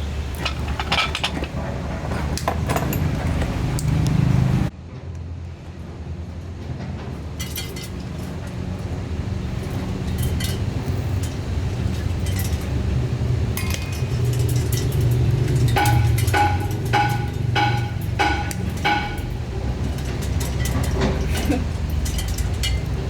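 Hammer striking metal in a run of sharp, ringing blows, about two a second, starting about two-thirds of the way through, over a steady low rumble.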